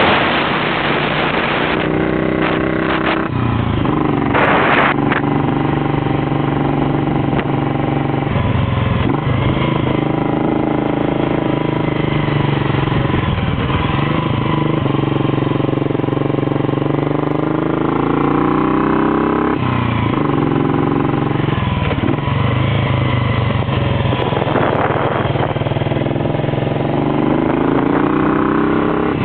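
Royal Enfield Bullet single-cylinder motorcycle engine pulling uphill from the rider's seat. The engine note climbs as it accelerates and drops back several times, with wind on the microphone in the first couple of seconds.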